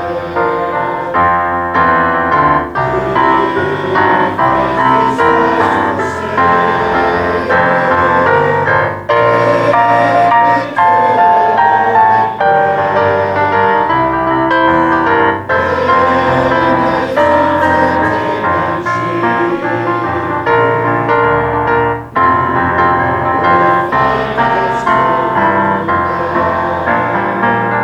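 Piano playing a hymn tune in full sustained chords.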